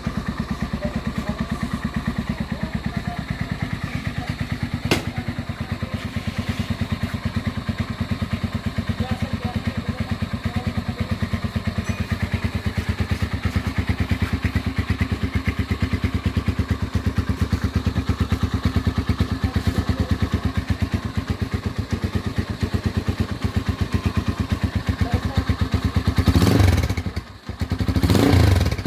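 Motorstar Z200x motorcycle engine idling with an even, steady beat, then revved near the end, briefly dropping before rising again. A single sharp click sounds about five seconds in.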